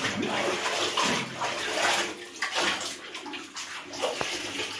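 Clothes being scrubbed by hand in a plastic washtub of soapy water: water sloshing and splashing in repeated swells.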